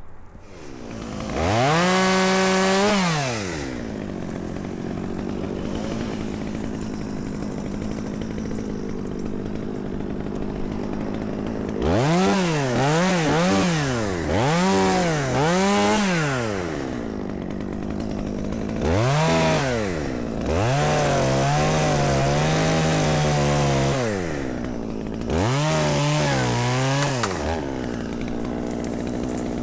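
Gas chainsaw idling and being revved in bursts: one rev-up near the start, a quick string of four revs midway, and later longer full-throttle runs where the pitch sags and wavers, as under load in wood.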